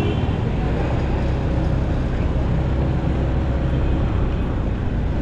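Motorcycle running steadily on the road: a low engine drone with road noise.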